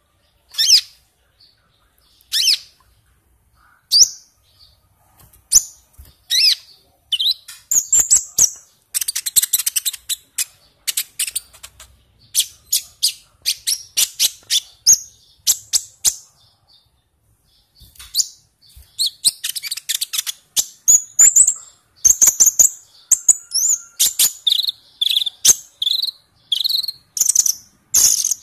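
Sunbird (kolibri ninja) singing vigorously: at first separate sharp high chirps a second or two apart, then fast runs of clicking notes and high whistled trills, broken by a short pause around the middle.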